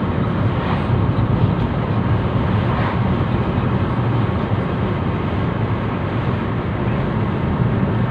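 Steady road noise inside a moving car: a low engine hum with tyre noise on asphalt, heard from the cabin.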